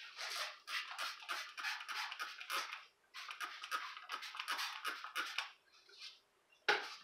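Trigger spray bottle squirted over and over, short hissing sprays at about four a second, with a brief pause partway and a stop about two-thirds of the way in; one louder burst near the end.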